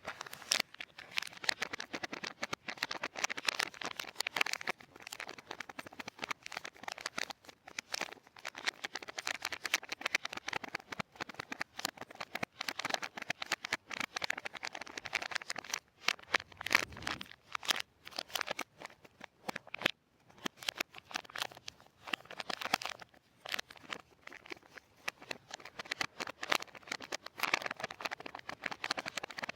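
Close-up crinkling and crackling as soap and its packaging are handled, a dense run of small crisp clicks with a couple of brief pauses.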